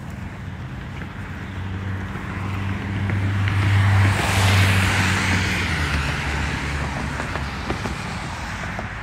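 A car driving past, its engine hum and tyre noise growing to loudest about four seconds in, then fading away.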